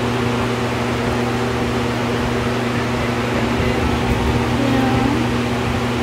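Steady machine hum with a constant low tone and an even hiss over it, unchanging throughout.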